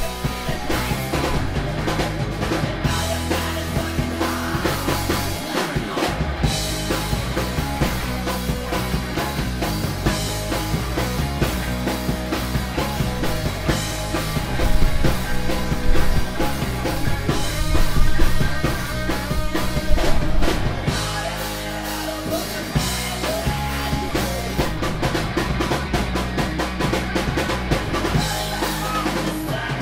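Rock band playing live: electric guitars through amplifiers, bass and a drum kit keeping a steady beat, a little louder for a stretch in the middle.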